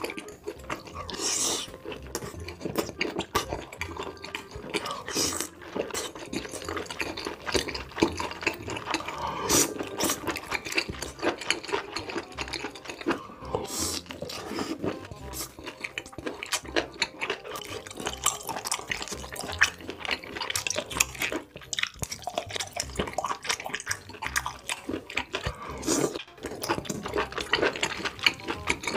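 Close-miked wet chewing and mouth smacks of a person eating octopus in a thick spicy sauce, a dense stream of sticky clicks.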